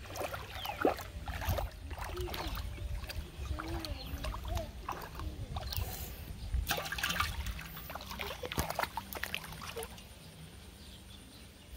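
Shallow muddy water sloshing and splashing in irregular small bursts as a child wades through it barefoot and handles a live carp, over a steady low rumble; the splashing thins out near the end.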